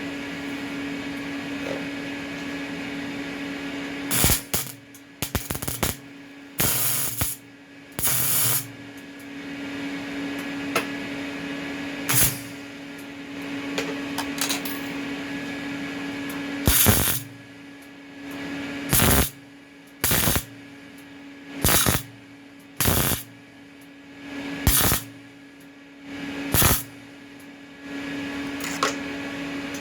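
Welder arcing in a string of short bursts, each under a second, as the cut-open steel muffler shell is tack-welded back together with filler rod across a wide gap. The bursts come irregularly at first, then every second or two in the second half, over a steady hum.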